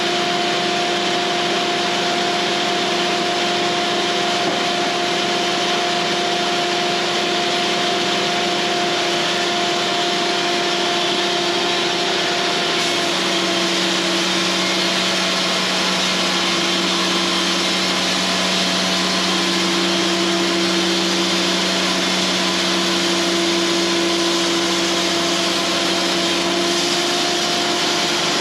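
Cooks AC36 bandsaw mill running steadily, its blade sawing through pine over the drone of its motor. The motor's note shifts slightly about halfway through.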